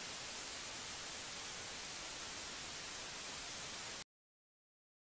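Quiet, steady hiss of analogue television static, an even white-noise rush, that cuts off suddenly about four seconds in.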